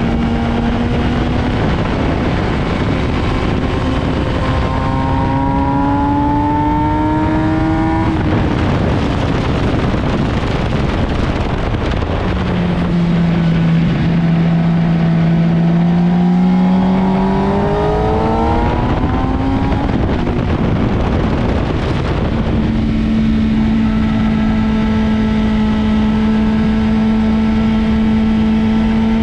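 Sport motorcycle engine heard onboard at speed on a race track, with heavy wind noise. Its pitch climbs under acceleration twice, dropping sharply between, then holds steady near the end.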